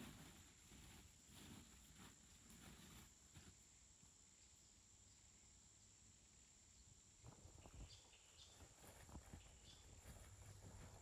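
Near silence: faint outdoor ambience with a steady high hiss, soft low thuds at the start and scattered faint taps and short high chirps near the end.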